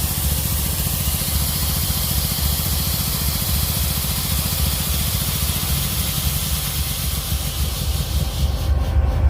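Rebuilt GE NS air compressor running with a low, pulsing rumble while compressed air hisses out loudly; the hiss dies away near the end as the release closes, and the compressor keeps running.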